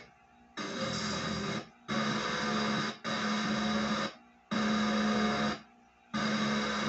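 CH-813 portable Bluetooth speaker's FM radio auto-scanning: five short bursts of station sound, about a second each with brief gaps between, as it stops on each station it finds and stores it as a preset before tuning on.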